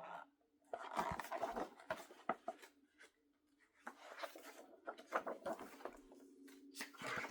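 Paper pages of a picture book rustling and clicking as they are handled and turned, in irregular spells, over a faint steady hum.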